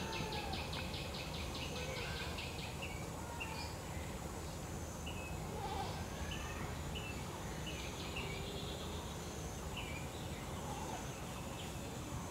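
Birds calling: a fast rattling trill that stops about two seconds in, then short high chirps repeated every second or so, over a steady low background hum.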